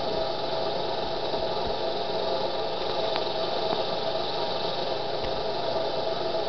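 Steady whir of the alternator that is powering a homemade HHO electrolysis cell, running evenly without change.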